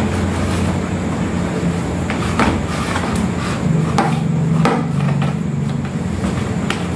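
Hands kneading and squeezing a wet dough of soaked floating fish pellets in a plastic bowl, mixing fishing bait. A few sharp knocks land about two and a half, three, four and five seconds in and again near the end, over a steady low hum.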